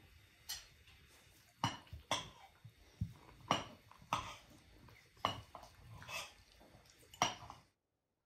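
Cutlery and plates clinking as people eat at a table: a string of sharp clinks and knocks, some ringing briefly, that cuts off suddenly near the end.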